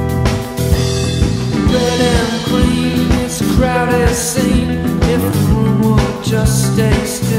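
Background rock music with guitar, drums and a singing voice.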